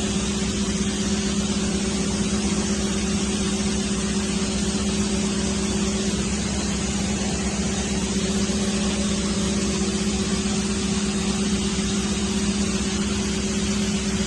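Vehicle engine running steadily: a constant low hum that holds one pitch throughout, with no revving.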